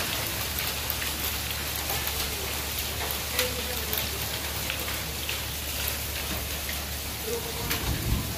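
Heavy hailstorm: hailstones pelting down in a dense, steady hiss, peppered with many sharp ticks as the stones strike the ground and surfaces.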